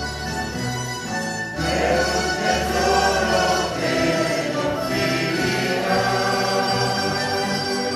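A mandolin orchestra of mandolins, mandolas, mandocellos, guitars and double basses playing, with a group of voices singing along.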